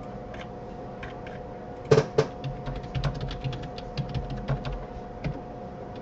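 Typing on a computer keyboard: a quick run of key clicks starting about two seconds in, with a couple of louder taps at the start, stopping a little after five seconds.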